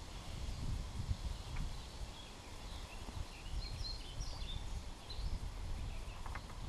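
Uneven low rumbling on the microphone from wind and the body-worn camera moving, with a few faint, short bird chirps in the middle.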